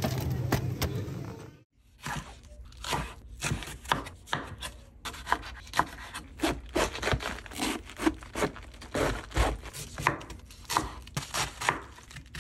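Kitchen food preparation: a string of irregular short knocks and scraping strokes, about two or three a second, like food being cut or scraped.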